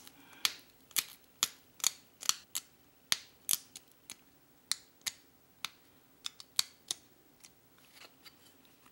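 Sharp clicks of small pressure flakes snapping off a stone point under a steel-nail pressure flaker, roughly two a second. The clicks grow fainter and sparser toward the end as the edge and notches are finished.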